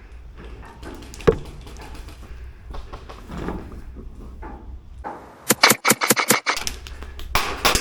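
Airsoft rifle firing: a quick string of about seven shots, then a faster rapid burst near the end. A single sharp knock comes about a second in.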